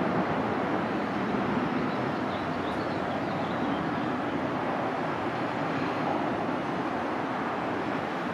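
Jet engine noise from a Boeing 737-800's CFM56-7B turbofans as the airliner climbs away after takeoff, a steady rushing sound that fades slowly as it gains distance.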